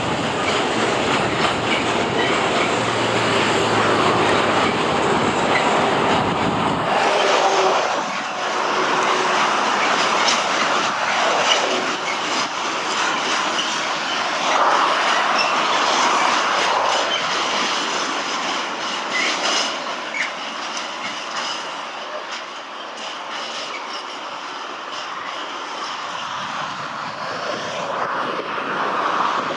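Freight train of tank wagons rolling past behind an electric locomotive: a steady rumble of wheels on rail, with faint repeated clicks from about a third of the way in.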